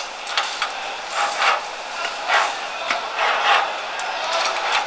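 Metal clicks and short rasping scrapes as a climber safety sleeve is fitted to a steel ladder's safety rail and moved along it, with harness hardware knocking against the ladder. A sharp click comes right at the start.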